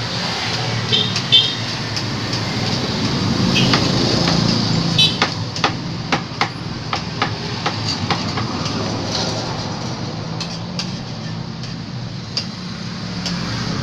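Scattered clicks and taps as a motorcycle stator and its cover are handled during repair work, over a steady low rumble like a vehicle engine running.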